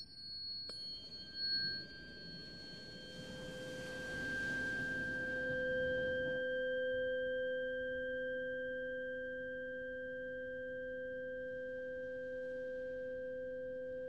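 Tuning forks struck with a sharp metallic clink about a second in, then ringing on as pure, steady tones. A lower tone an octave below swells in a few seconds later and sustains with little fading.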